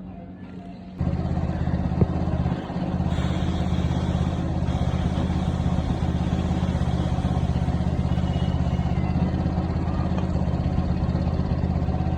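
Yamaha FZ's single-cylinder motorcycle engine starts about a second in and then runs steadily, with one sharp click shortly after. The bike has a newly fitted front sprocket and a freshly lubricated chain.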